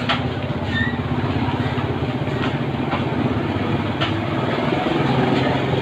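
Motorbike engine idling steadily close by, with a few light clicks over it.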